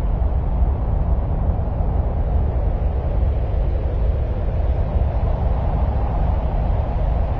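A steady, deep noise, presented as the sound of Mars. Most of its weight is in the bass, with no separate events or changes.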